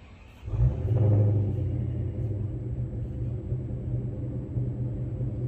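Pickup truck engine catching about half a second in with a brief rise, then idling with a steady low rumble.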